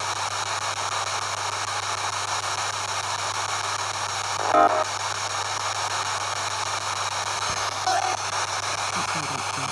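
P-SB7 spirit box sweeping down the FM band, giving a steady hiss of radio static. Brief fragments of broadcast sound break through; the loudest comes about halfway through and a shorter one near the end.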